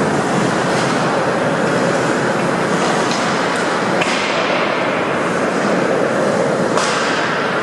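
Steady rink noise during an ice hockey game: skates on ice and the hum of the arena. A few sharp knocks of sticks, puck or boards are heard, the clearest about four and seven seconds in.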